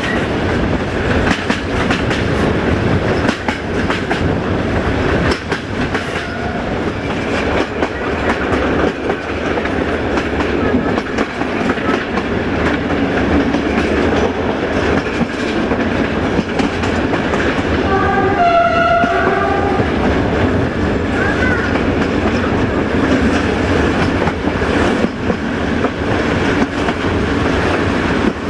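Passenger train running at speed, heard from a carriage window: a steady rumble of the wagons with wheels clicking over the rail joints. About two-thirds of the way through, a train horn sounds briefly.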